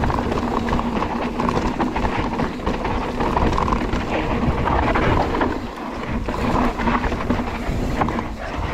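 Mountain bike riding down a dirt trail: tyres running over loose dirt and the bike rattling, with steady wind noise on the microphone.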